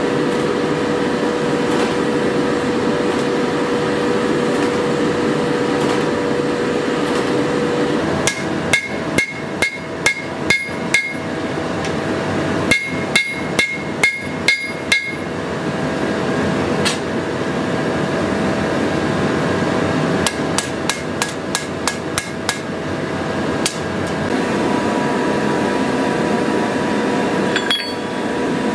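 Hand hammer striking a pattern-welded sword blade on the anvil while it is forged: three runs of blows, each about seven or eight long, the anvil ringing after the strikes in the first two runs and the last run lighter and quicker. Under them is a steady blowing noise from the forge.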